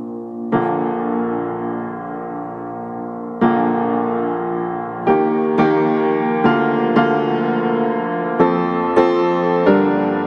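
Background piano music: slow, sustained chords, with notes struck more often in the second half.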